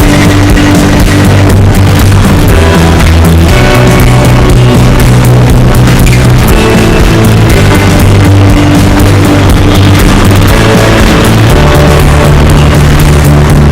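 Loud background rock music with a steady beat, guitar and drums.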